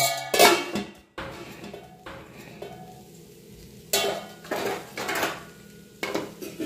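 Metal spatula clanking and scraping against a metal kadai while stirring shredded cabbage: a loud ringing clank or two at the start, then a lull, then a few scraping strokes about four to six seconds in.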